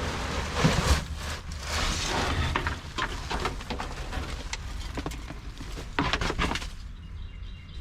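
Irregular rustling and scraping with a few sharp knocks, as debris and loose parts are handled and pulled out of an old car's interior.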